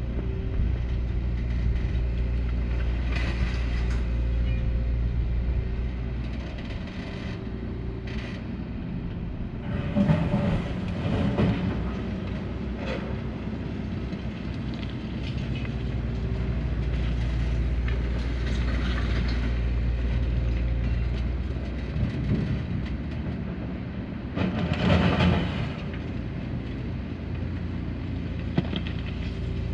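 Hyundai 235 excavator's diesel engine running steadily while loading a truck, with louder bursts of metallic clatter about ten seconds in and again about twenty-five seconds in.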